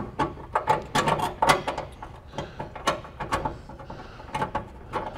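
Metal clicks and clinks of a bolt and the hood hinge being handled as the bolt is worked into place by hand. The clicks come quickly in the first two seconds, then more sparsely.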